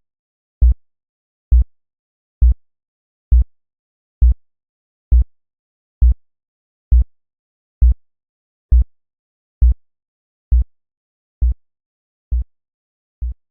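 Synthesized heartbeat: deep, low thumps, each a quick double beat, repeating evenly a little faster than once a second and growing fainter over the last few beats.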